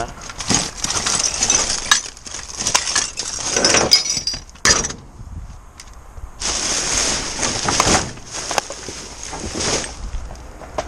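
Plastic rubbish bags rustling and crackling as a bin's contents are rummaged through by hand, with scattered sharp knocks and clinks of items inside. There is a brief lull about five seconds in.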